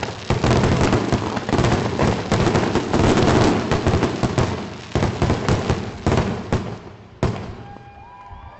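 Building demolition: a wall breaking apart, with a dense, loud run of crashes and cracking debris for about seven seconds. It ends with one last sharp crack, then dies away.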